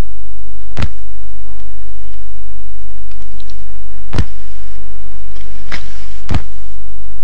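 Steady low electrical hum under an even hiss, broken by sharp pops: one just under a second in, one about four seconds in, and two close together near the end.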